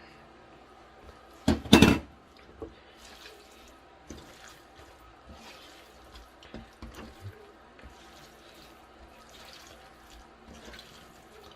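Wet handling sounds of pork strips being mixed with a liquid marinade, with scattered small clicks and one loud, half-second noise about one and a half seconds in.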